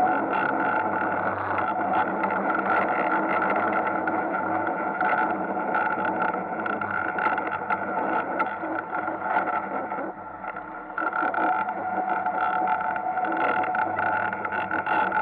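Ice kart's motor running at a steady pitch, heard from onboard, easing off briefly about ten seconds in and then picking up again.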